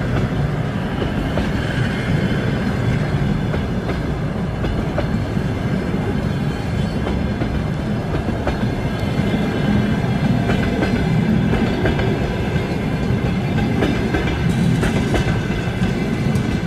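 Passenger coaches of a departing long-distance train rolling past on steel wheels: a steady loud rumble and rail hiss with the clickety-clack of wheels over rail joints, the clicks sharper near the end.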